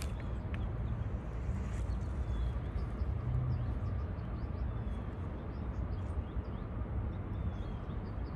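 Outdoor park ambience: a steady low rumble, with faint short chirps of small birds scattered throughout.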